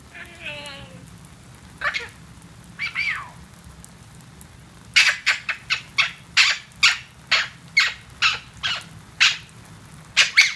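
Male Eclectus parrot chattering under a water shower: a few drawn-out calls, one falling in pitch, in the first three seconds, then a quick run of short, sharp chirps and clicks, about three a second, from about halfway.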